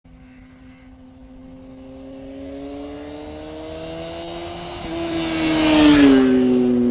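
Motorcycle approaching along the road and passing close by: the engine note grows steadily louder and rises in pitch, is loudest about six seconds in, and drops in pitch as it goes past.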